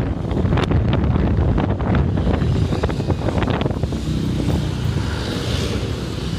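Wind buffeting the microphone over a steady low rumble of road traffic, recorded from a moving motorcycle among buses.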